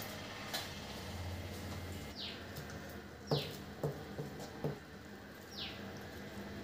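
A metal serving spoon knocks four times against the metal biryani pot as cooked rice is scooped out, about halfway through. A bird calls several times in short, falling whistled notes.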